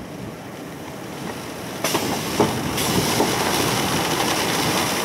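Strong storm wind rushing across the microphone as a steady roar. It jumps louder about two seconds in, with a couple of short knocks.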